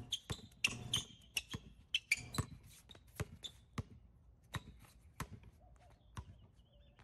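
A basketball dribbled on a concrete court. A quick run of bounces comes in the first two or three seconds, then slower single bounces about every half second to a second.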